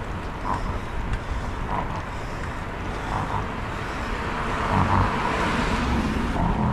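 Wind rushing over the microphone of a bicycle-mounted camera, with road noise from riding at speed on asphalt; it grows louder about five seconds in.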